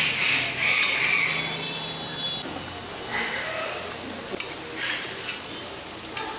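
Hot oil sizzling steadily as a batch of pointed gourd and onion fritters deep-fries in a metal wok, loudest in the first second or so. A metal utensil clinks against the pan a couple of times.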